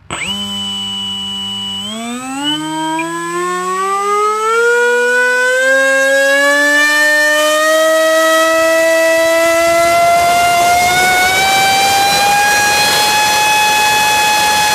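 Turnigy 3648-1450 brushless outrunner motor spinning a 7.5 APC propeller on a bench run. It starts with a high steady whine at low throttle for about two seconds, then the pitch rises steadily as the throttle is opened and levels off at full throttle near the end, with a growing rush of propeller air. At full power it is drawing about 1600 watts and 75 to 80 amps.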